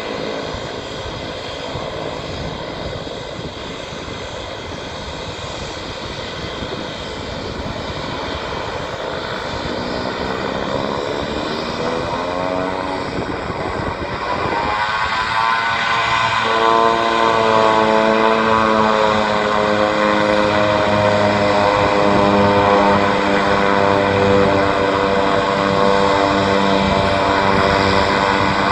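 Twin-turboprop airliner's engines on a ground run-up. The steady engine noise gives way, from about ten seconds in, to a rising whine as power comes up. From about sixteen seconds in it holds at a louder, steady pitched propeller hum.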